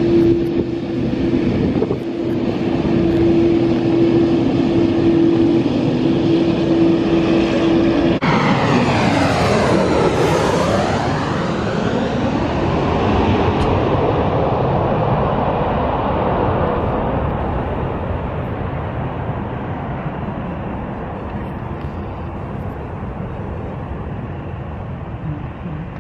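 For the first eight seconds, a Boeing 787's jet engines run with a steady whine as it rolls along the runway. Then, after a cut, a regional jet passes low overhead on landing approach. Its engine rush sweeps in pitch as it goes over and fades slowly as it moves away toward the runway.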